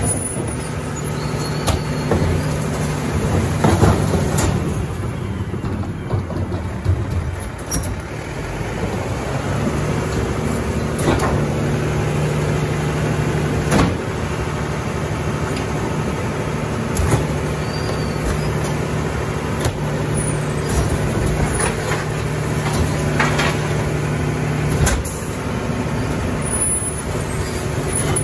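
Mack LR garbage truck with a Heil Formula 4060 rear loader, its diesel engine running with a steady drone that drops and picks up again a couple of times. Sharp knocks are scattered through it.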